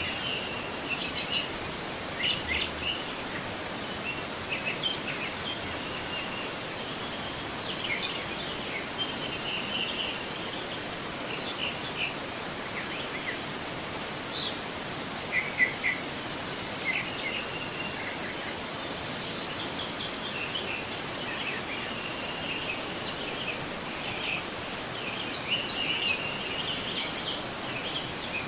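Steady rush of a forest river's flowing water, with songbirds chirping and calling on and off throughout.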